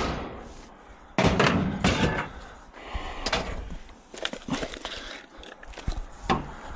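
Scrap items being handled and dropped. There is a loud clattering impact a little over a second in, then scattered knocks and rattles.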